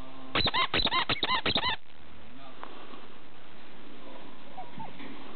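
Siberian husky puppies yipping: a fast run of about ten short, high, rising-and-falling yips over a second and a half. Then a few faint squeaks and whimpers over a steady background hiss.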